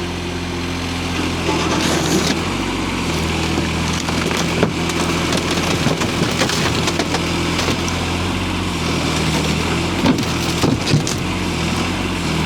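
Hytop HT20 Pro mini excavator's engine running steadily, its pitch shifting up and down several times as the hydraulics are worked, with a few sharp knocks.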